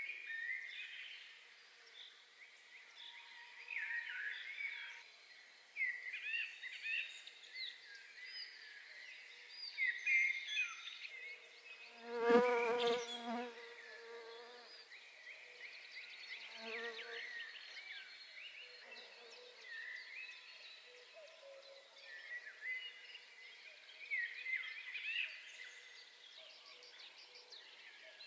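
Several small birds singing with quick chirps and trills. About twelve seconds in, a flying insect buzzes loudly close by for about a second and a half, then briefly and more faintly again a few seconds later.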